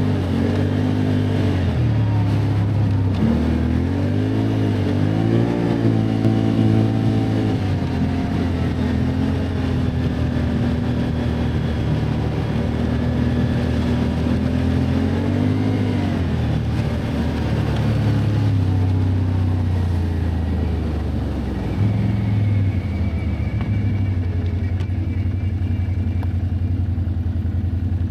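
Can-Am ATV engine running under way, its pitch rising and falling repeatedly as the throttle is opened and eased. About three-quarters of the way through it drops off briefly, then settles into a steady run.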